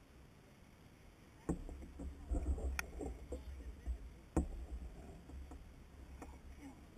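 Knocks and clunks of handling on a plastic fishing kayak while a fish is played on rod and reel. The first sharp knock comes about a second and a half in, a cluster follows, and the loudest comes about four and a half seconds in, with a low rumble between them.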